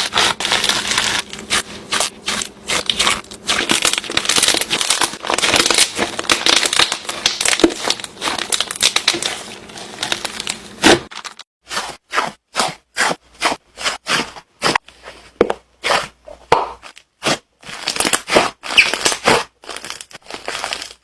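Slime being squeezed and worked by hand, giving dense crackling and popping for about eleven seconds, then separate crackles with short pauses between them.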